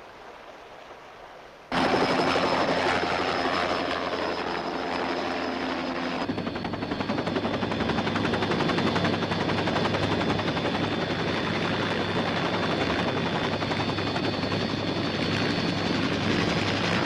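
Helicopter running, cutting in suddenly about two seconds in, with a fast, even rotor chop.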